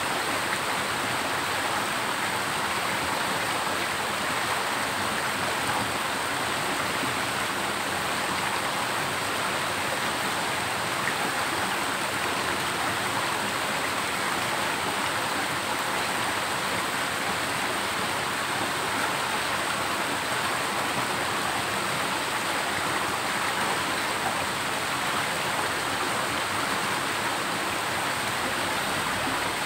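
Water cascading down a small rocky waterfall into a stream: a steady, unbroken rush of water.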